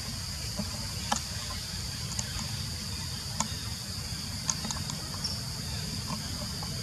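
Outdoor woodland ambience: a steady, high-pitched insect drone over a continuous low rumble, with a few short, faint clicks scattered through it.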